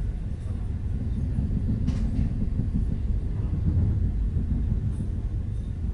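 Steady low rumble of a moving passenger train heard from inside a soft sleeper coach: the wheels running on the rails, with a single faint click about two seconds in.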